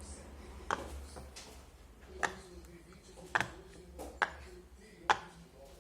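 Plastic fidget toy being pressed by hand, giving six sharp, irregularly spaced clicks, the last one the loudest.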